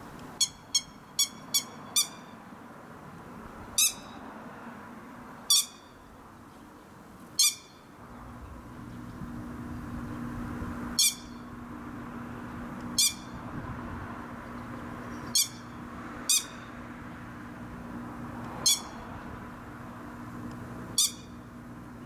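Grey-headed lapwing giving short, shrill calls: a quick run of five at first, then single calls every two seconds or so.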